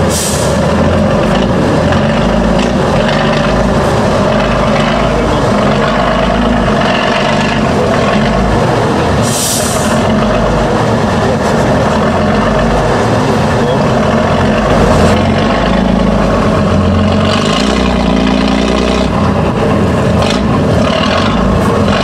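Tatra 813 8x8 truck's diesel engine running under load as the truck crawls through deep mud, with short hissing bursts at the start and about halfway through.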